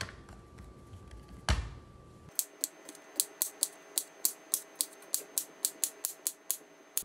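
A kitchen knife slicing a cucumber into rounds on a bamboo cutting board, each cut ending in a short sharp click of the blade on the wood, about four a second in an even rhythm. A single knock comes just before the slicing starts.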